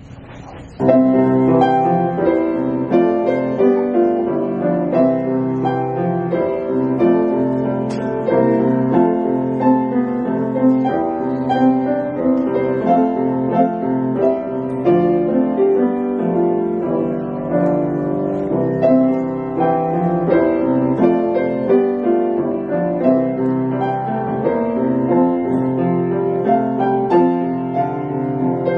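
Steinway grand piano played four-hands, a duet by a child and her teacher, beginning about a second in and going on at a steady, even pulse.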